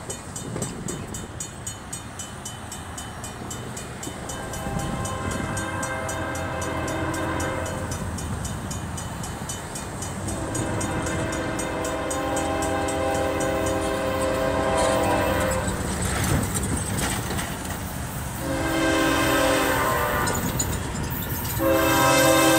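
An approaching CSX freight locomotive's K5LA five-chime air horn sounds the grade-crossing signal: two long blasts, a short one, then a final long blast starting near the end. Under it the crossing's electronic warning bell rings steadily, and the low rumble of the train grows louder.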